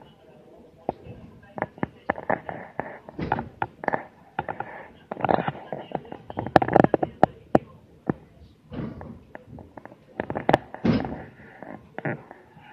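Running noise inside the cab of the Sakamoto Cable funicular car going downhill: a rumble broken by irregular sharp clicks and knocks, thickest around the middle. The recording sounds garbled, which the uploader calls odd.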